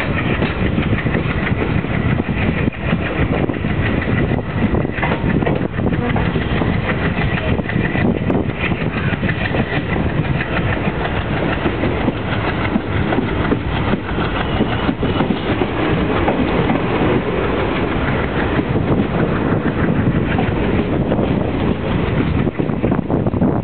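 Netravati Express passenger train running along the track, heard from aboard: a steady rumble with dense rattling from the wheels and coaches.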